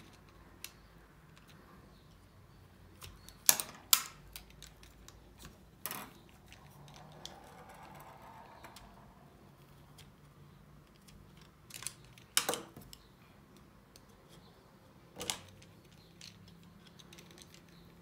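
Small screwdrivers prying at the plastic housing of a VW Passat brake pedal switch: about six sharp plastic clicks and snaps at irregular intervals, the loudest a pair about three and a half seconds in, with a soft scraping sound midway.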